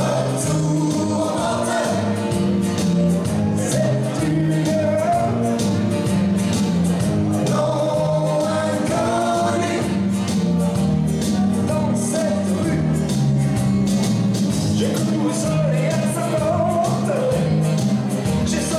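Upbeat song with singing over a steady beat, played for a group Madison line dance.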